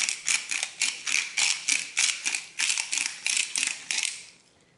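Hand salt grinder being twisted, grinding salt: a quick, even run of dry crunching clicks, about four or five a second, that stops near the end.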